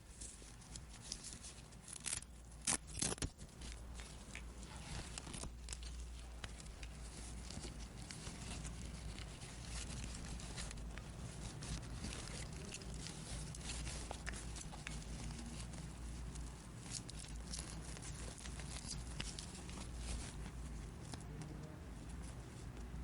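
Plastic toy packaging and small toy pieces being handled: soft crinkling and rustling with scattered light clicks and taps, and a few sharper clacks about two to three seconds in.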